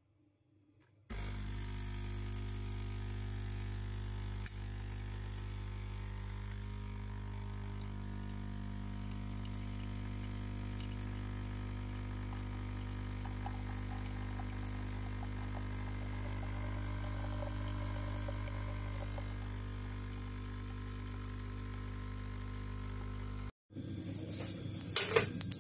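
Nescafé Dolce Gusto capsule coffee machine's pump humming steadily as it brews coffee into a mug, starting about a second in and stopping suddenly near the end. Louder rattling follows in the last two seconds.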